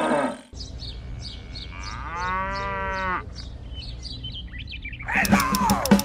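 A cow moos once, one long call about two seconds in, over birds chirping about twice a second. Near the end louder music with drum hits cuts in.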